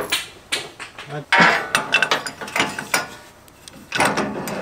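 Socket wrench ratcheting in short runs of fast clicks, as nuts are run down onto the bolts of a recovery-board mount on a metal bed rack.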